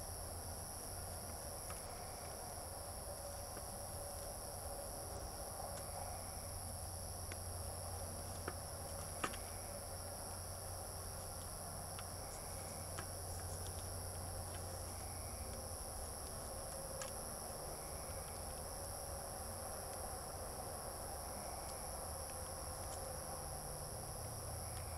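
Steady high-pitched chorus of night insects, with a few sharp clicks, the loudest two about a third of the way in.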